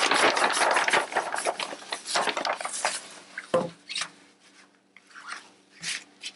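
Thin vinyl photo backdrop crinkling and rustling as it is rolled up onto a cardboard wrapping-paper tube. The rustling is dense for the first three seconds, then comes a short bump about three and a half seconds in and a few brief rustles.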